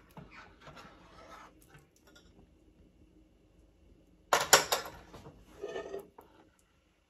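A stainless-steel jam funnel being lifted and set down among glass jam jars on a metal tray. A loud burst of metal-on-glass clinks and clatter comes about four and a half seconds in, with a smaller clatter about a second later. Soft handling noises come before it.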